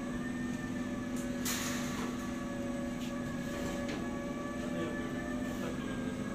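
Steady machine hum with several constant tones, from the screen-print drying oven's fans and conveyor drive running. There is a brief hiss about one and a half seconds in.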